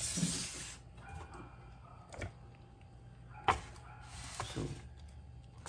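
Light handling noises from hands moving an open inverter and a tape measure: a soft rustle at the start, then two faint clicks more than a second apart and a brief scrape.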